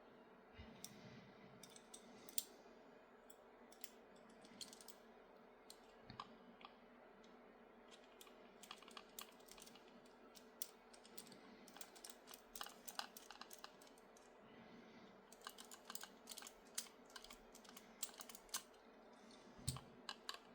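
Faint, irregular light clicks and taps of small plastic parts and tools being handled during hand assembly, coming thicker in the last few seconds.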